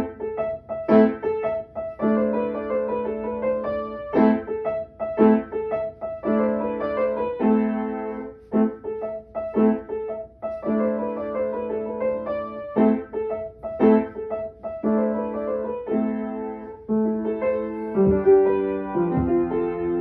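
Solo piano being played, a lively piece that starts abruptly and goes on in short phrases of quick repeated notes over chords, with brief gaps between phrases.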